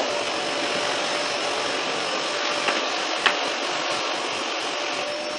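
Vacuum cleaner running steadily as its hose and wand are worked over the floor, with a faint steady whine in its noise. Two short knocks come about halfway through.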